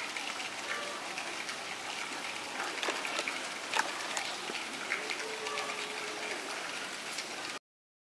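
Steady patter of rain with scattered drips and a few sharp taps, cutting off suddenly near the end.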